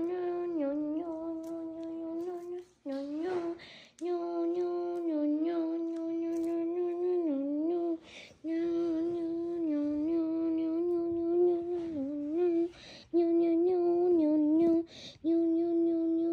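A person humming one long, held note that dips and wavers in pitch now and then, broken by four short pauses.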